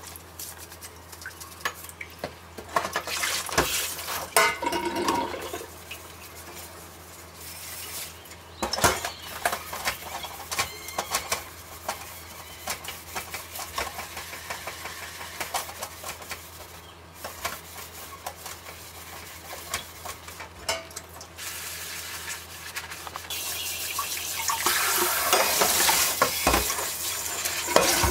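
A sponge scrubbing a stainless steel pot in a stainless sink, with scattered knocks and clinks of the pot. This is the first wash of a new pot to scrub off factory polishing compound. Near the end a faucet runs steadily as the pot is rinsed.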